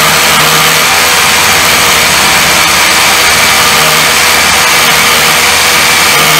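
Cordless Einhell Herocco SDS rotary hammer drilling into a solid concrete block in hammer mode: the motor running with the rapid, steady hammering of the bit into the concrete, loud and unbroken.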